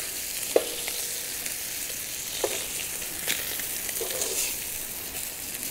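Walleye fillets sizzling in butter in a pan over hot coals, a steady hiss. A few short clicks of metal tongs against the pan as the pieces are lifted out.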